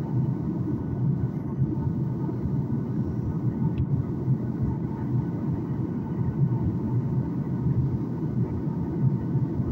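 Steady cabin rumble of a Boeing 737 MAX 9 airliner in flight, its CFM LEAP-1B engines and the airflow heard from inside the cabin, with faint steady higher tones over the low rumble.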